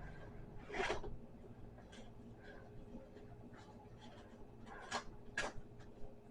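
Quiet handling of unboxed accessory-bundle packaging: light rustles and scrapes, with brief louder ones about a second in and twice around five seconds in.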